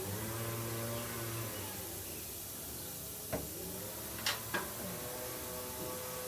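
Three sharp clicks, one a little past the middle and two close together about a second later, over a steady humming background with wavering tones.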